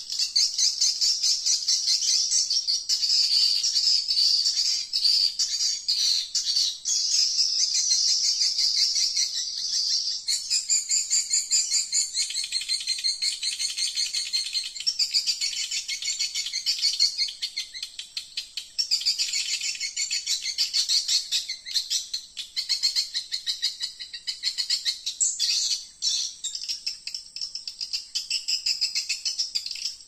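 Swiftlets chirping: a dense, continuous chatter of rapid high-pitched chirps, dipping briefly in loudness a few times.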